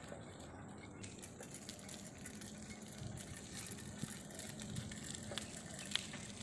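Faint windy outdoor ambience: a steady rustling hiss with scattered small clicks and one sharp click about six seconds in.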